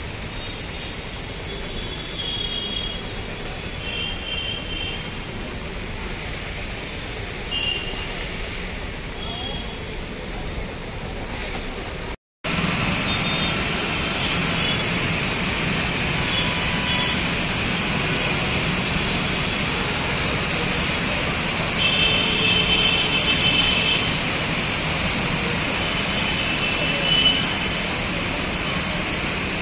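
Gridlocked city traffic: a steady wash of engine and road noise with short car and motorbike horn honks now and then, one held for a couple of seconds. A brief dropout about twelve seconds in is followed by a louder, fuller rush of traffic.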